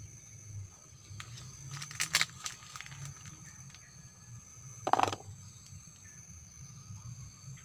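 Bird's-eye chilies being picked by hand: a patch of rustling leaves and small snaps around two seconds in, then one short clatter about five seconds in as the picked chilies drop into a plastic bowl.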